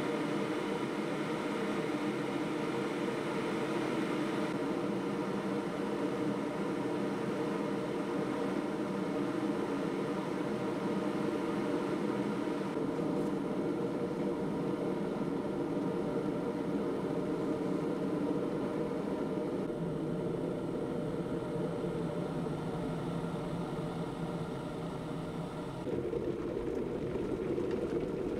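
Electric kettle heating water: a steady rushing hum that starts abruptly as it switches on and runs on without a break.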